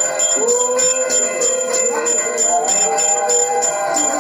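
A hand bell rung in quick repeated strokes, about three a second, over sustained wavering tones.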